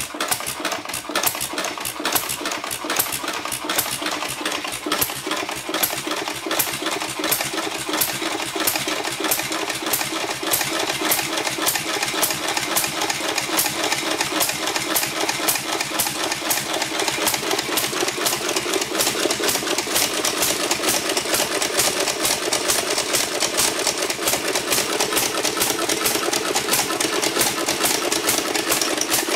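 1937 Stover single-cylinder hit-and-miss stationary engine running with a steady, rapid beat of firing strokes, picking up slightly in loudness. It fires on every cycle at full speed instead of coasting between firings: a worn piece on the governor linkage doesn't catch and hold the exhaust valve open.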